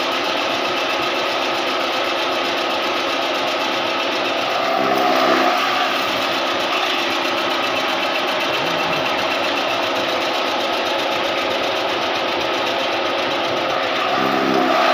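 Electric chaff cutter with a 3 hp motor running steadily, its motor hum and whirring cutter drum continuous. About five seconds in, and again near the end, the sound swells briefly as green fodder is fed in and chopped.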